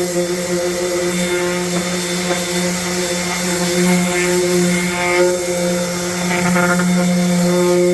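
Festool palm sander running with a steady hum, screening the old finish on hardwood stair treads.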